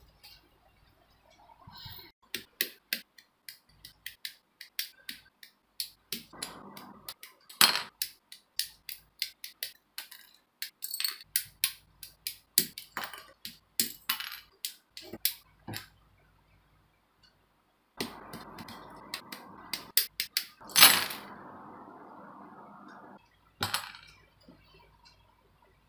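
Sharp plastic clicks and snips as Gunpla model kit parts are cut from a grey plastic runner with side cutters and handled on a cutting mat. Near the end there are about five seconds of steady scratchy noise with one loud click in the middle, then a few more clicks.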